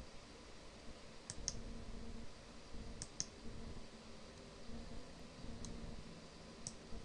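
A few sharp computer mouse clicks, some coming in quick pairs, over a faint steady low hum.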